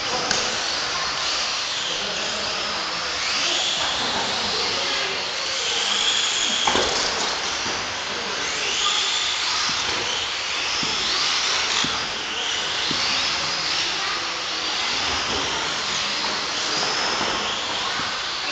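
Several Tamiya TT-01 electric RC touring cars racing, their motors whining up and down in pitch as they accelerate and slow, with a few sharp knocks, the loudest about seven seconds in.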